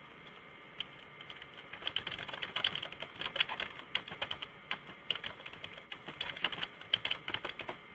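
Typing on a computer keyboard, picked up by the presenter's microphone: one click about a second in, then a quick, irregular run of key clicks that goes on until just before the end.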